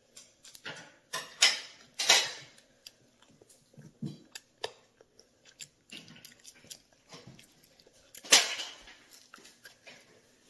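A child biting and chewing a crisp, flat candy sheet: irregular crunching and crackling, loudest about a second and a half, two seconds and eight seconds in.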